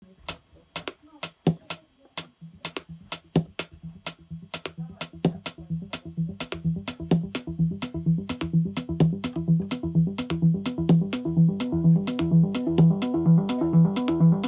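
Electronic techno loop: an Arturia Microbrute analog synthesizer plays a repeating sequenced bass line over a steady electronic hi-hat tick, about four a second. The synth line comes in after about two seconds and grows louder and brighter as its knobs are turned by hand.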